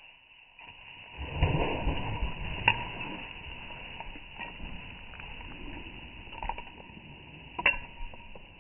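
Crunching and swishing of deep fresh snow under running feet, loudest for a couple of seconds after about a second in, with a couple of sharp clicks.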